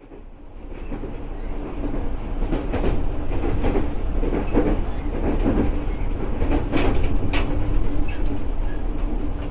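Electric commuter train (KRL) running, heard from inside the carriage: a steady rumble of wheels on rail with a faint motor hum, growing louder over the first two seconds. It is broken by a few sharp clicks as the wheels pass rail joints, two of them close together about seven seconds in.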